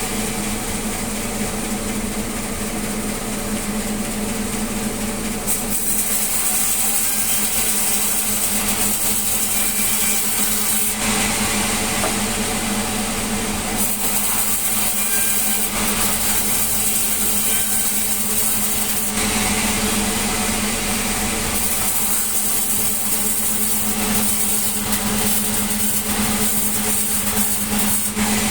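Sawmill saw running steadily with a constant engine hum, sawing melinjo wood. A high hiss from the blade rises and falls as cuts begin and end.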